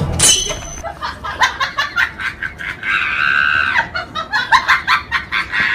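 Comic laughter sound effect: a quick high falling squeal, then a long run of rapid, high-pitched cackles with one drawn-out note in the middle.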